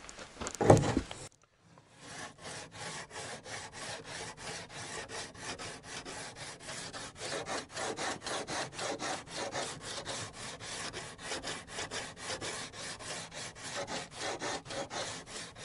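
A brief loud bump about half a second in, then a sandpaper-wrapped wooden block rubbed back and forth along the top edge of a wooden door, about four strokes a second. The door is being sanded down because it has swollen with damp and binds when closing.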